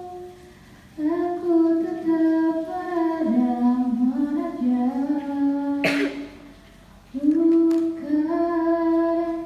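A woman singing unaccompanied into a microphone, with long held notes that slide from pitch to pitch. It comes in two phrases with a short break a little past the middle, and a single sharp click just before the break.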